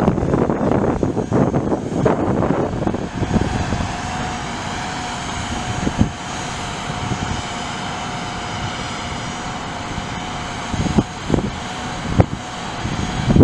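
Heavy truck diesel engine (the fire truck's Cummins ISM 10.8-litre straight-six turbo diesel) running steadily, with a steady whine that sets in about three seconds in, and a few short thumps.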